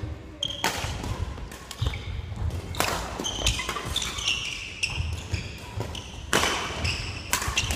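Badminton rally: rackets striking the shuttlecock as a few sharp cracks at uneven intervals, with sneakers squeaking and feet thudding on a wooden gym floor between the shots.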